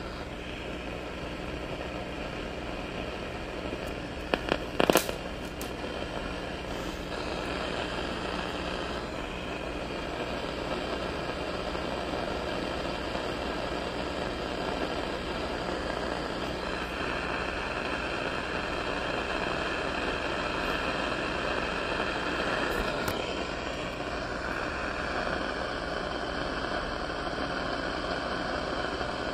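Radio receiver hissing with static between stations, the noise shifting a little in tone. A few sharp clicks about five seconds in.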